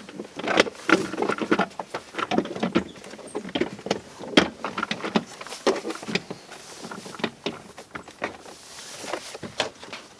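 Irregular clicks, knocks and light rattles of car door parts being handled while the stock speaker and door trim are refitted.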